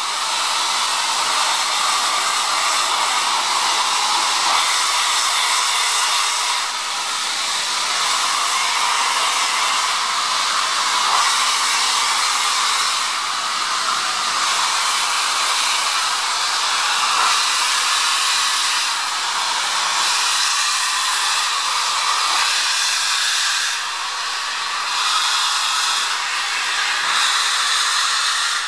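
Steady, loud hiss of steam venting from the open cylinder drain cocks of BR Standard Class 4 2-6-4 tank locomotive 80072 as it moves slowly off.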